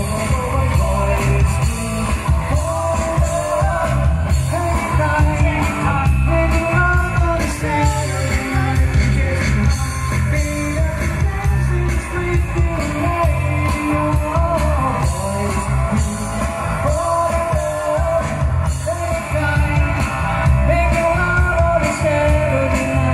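Live band playing a rock-pop song: a voice singing the melody over electric guitar, keyboard and drums, with a strong bass line.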